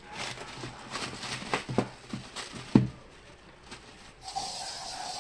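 Handling noises: a few short knocks and rustles as shoes are picked up and set down, the sharpest knock a little before the middle. Near the end a steady mid-pitched hum with a hiss above it starts up.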